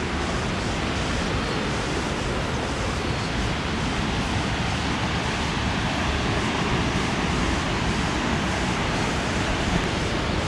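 Steady rushing of falling water from a nearby waterfall, an even, unbroken roar.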